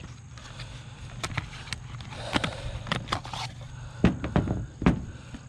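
A cardboard box being opened and a new 40 µF run capacitor taken out and set down on the metal top of a heat pump: paper rustling and a series of light clicks and knocks, the sharpest near the end.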